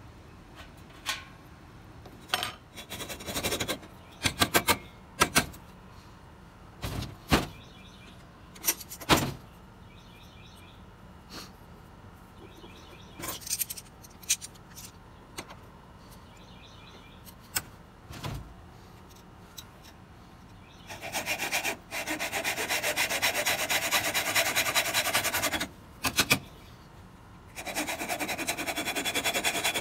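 Scattered knocks and clicks of hand tools and metal being handled and set down, then a hacksaw cutting a thin strip of scrap sheet metal held in locking pliers: a steady rasp of sawing strokes for about four seconds, a brief pause, and the sawing starting again near the end.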